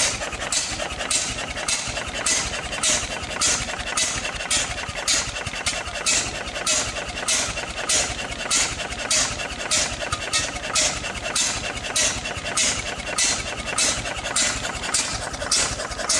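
7HP Sunshine single-cylinder stationary engine running steadily, its exhaust beating evenly about twice a second.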